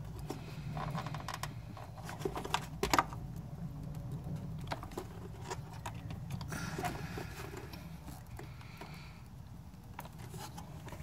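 Scattered small plastic clicks and creaks from a hand straining to twist a tight stock headlight bulb out of its socket at the back of the housing. The bulb is being turned the locking way, which the owner later finds is why it won't come out.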